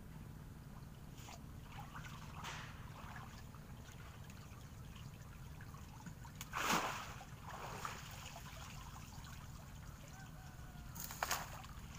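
Water splashing and sloshing in a few short bursts, the loudest about two-thirds of the way through, over a steady low hum.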